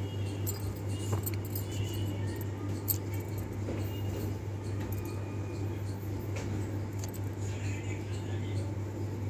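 Graphite pencil scratching on paper in short drawing strokes, with faint scattered ticks, over a steady low hum.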